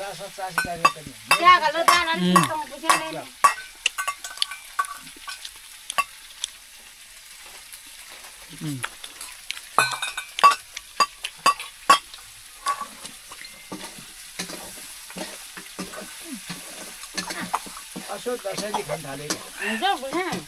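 Pork stir-frying in a pan: a steady sizzle under repeated clicks and scrapes of a spatula or ladle against the pan.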